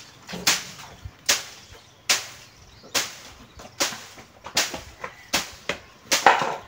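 Dried bean plants being threshed by beating: steady blows of a stick on a pile of dry stalks and pods, one loud swishing stroke about every 0.8 seconds, with a few lighter strokes in between.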